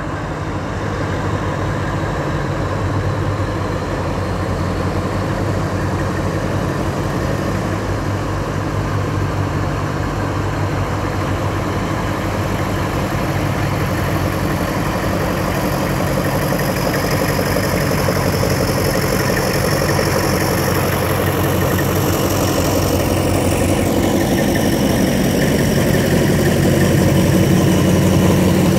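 A pair of TCDD DE24000 diesel-electric locomotives running together at low speed, their diesel engines giving a steady low drone that grows louder toward the end as they come close. A faint high whine rises slowly in pitch over the engine sound.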